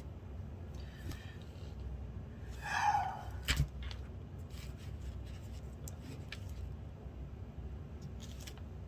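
Faint handling noises, light rubbing with a few small clicks, one sharper click about three and a half seconds in, just after a short breathy exhale.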